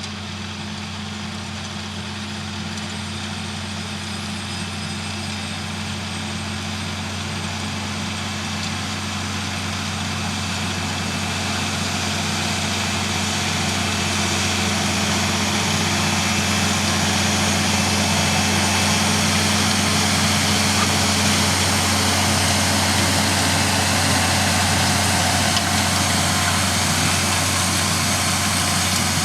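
John Deere tractor's diesel engine running steadily at a constant pitch in the field, growing louder over the first half and then holding level.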